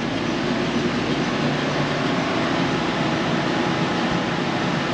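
Steady rushing hum of fans and ventilation machinery in a building mechanical room, with a faint low hum underneath.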